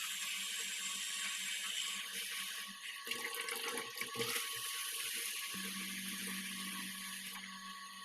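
Water running steadily from a newly fitted sink mixer tap, with a few knocks around the middle. A low hum comes in about two-thirds of the way through.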